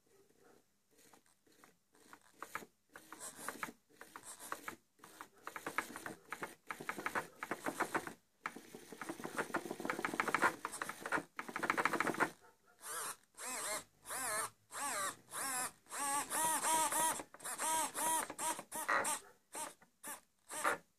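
Small RC servos whirring in many short, stop-start bursts as the transmitter stick is moved, the whine rising and falling in pitch as the servo arms swing back and forth. It starts faint and grows louder after a couple of seconds.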